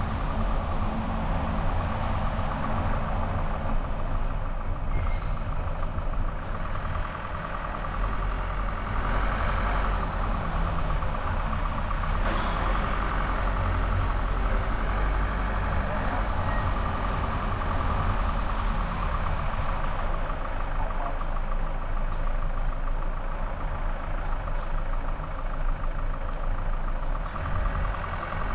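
Steady road noise of a car driving, a deep rumble under a rushing hiss, picked up by a camera mounted on the car's hood.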